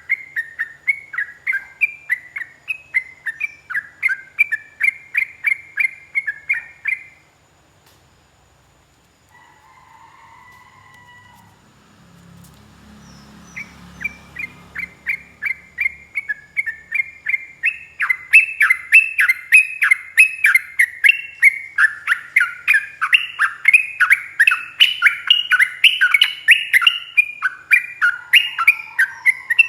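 Sooty-headed bulbul (trucuk) singing a long, fast run of short chirping notes, about three a second. It breaks off about seven seconds in, falls quiet for several seconds, then starts again and grows louder.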